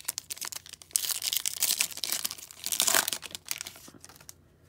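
Foil trading-card pack wrapper being torn open and crinkled: scattered crackles, then a dense crinkling for about two seconds, dying away to a few faint rustles near the end.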